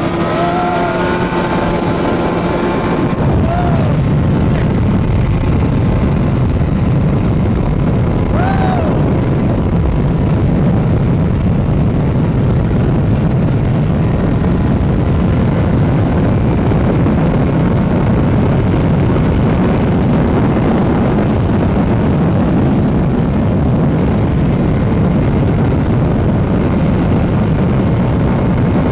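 Two-stroke go-kart engine running as the kart is driven, a steady buzz that turns into a louder, denser rush about three seconds in, with a couple of brief rising chirps.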